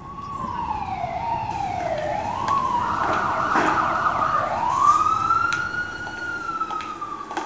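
A siren wailing, its pitch sliding slowly down, back up and down again.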